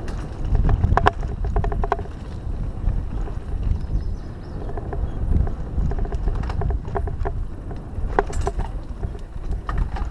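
Mountain bike riding a dirt singletrack trail: a steady low rumble of tyres on dirt and air over the microphone, with repeated bursts of quick clicking and rattling from the bike over bumps.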